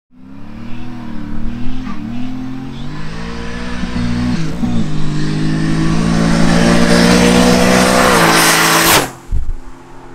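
Turbocharged 5.3-litre LS V8 in a 1968 Pontiac GTO accelerating hard, its engine pitch climbing and dipping twice as the Turbo 400 automatic upshifts. The sound drops away suddenly near the end as the car goes past.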